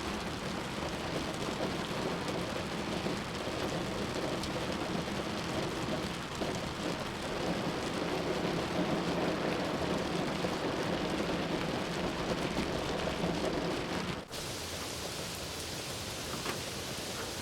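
Steady heavy rain with a low rumble underneath. About fourteen seconds in it cuts off abruptly and gives way to a thinner, hissier rain sound.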